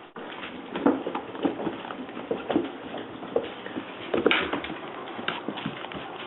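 Pit bull puppies play-wrestling: paws scuffling and patting on the floor, with short puppy grunts and yips scattered throughout.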